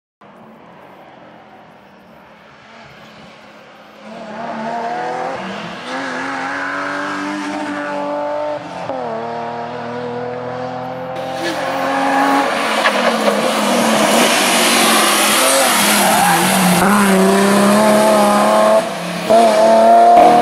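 BMW E36 rally car's engine revving hard through the gears, its pitch climbing and dropping with each shift and growing louder as the car approaches. About eleven seconds in the sound jumps to a much closer, louder pass with a broad rush of noise.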